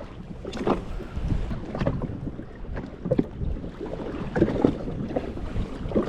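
Small waves slapping and splashing unevenly against a jet ski's hull, with wind buffeting the microphone.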